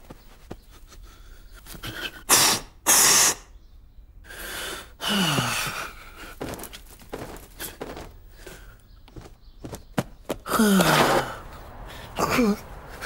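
A run of short cartoon vocal noises with no words: gasps and sneeze-like bursts, some ending in a falling grunt, with brief pauses between them.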